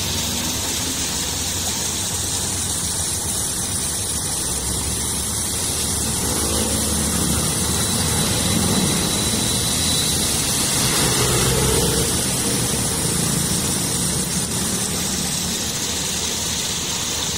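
Muddy floodwater rushing steadily through a grated culvert outlet. A motor vehicle engine swells and passes about midway.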